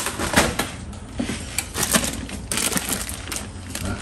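Plastic packaging crinkling and crackling in irregular bursts, with a few light clicks, as food is handled.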